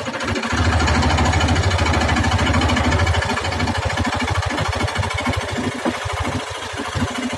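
Electric jigsaw cutting wood, its blade running in a fast, even rhythm; the cut gets louder about half a second in and stays steady.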